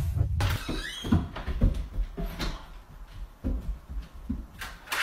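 Music with a heavy low beat cuts off about half a second in, followed by scattered soft knocks and bumps.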